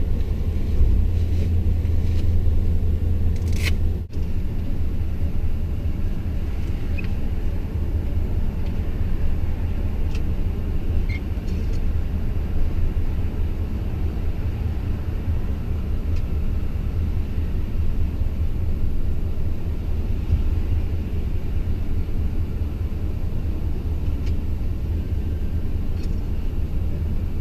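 A truck's engine running, a steady low rumble, with a few faint short high beeps over it.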